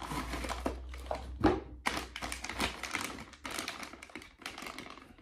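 A mailed package being opened by hand: quick, irregular crackling and tearing of paper and plastic wrapping, in many small clicks.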